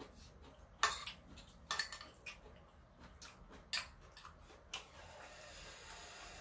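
Metal spoons clinking against a small bowl and a frying pan while eating, with about six sharp clinks at irregular intervals.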